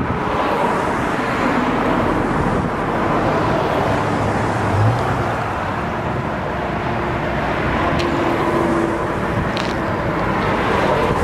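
Steady rush of road traffic mixed with wind.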